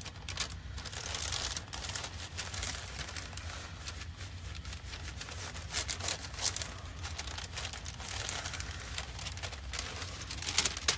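Parchment paper rustling and crinkling under a household iron being worked back and forth over it to heat-set ink on burlap, with a steady low hum underneath.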